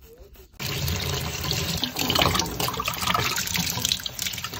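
Tap water running into a sink and splashing into a jar of purple paint water, rinsing out paint. The flow starts abruptly about half a second in and stays steady.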